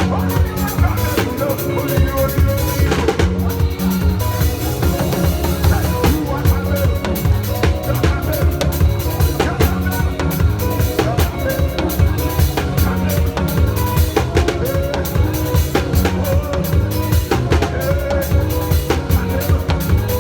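Church praise music played live: a drum kit keeps a fast, busy beat with bass drum and snare over bass and other pitched instruments.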